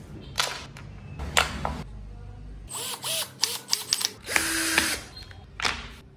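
A small power tool working wood in several short bursts of under a second each, with a quick run of sharp clicks near the middle.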